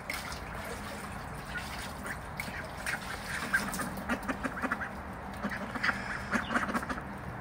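White domestic ducks quacking softly in short calls, with many small clicks from their bills as they feed on rice, busier after the first second or two.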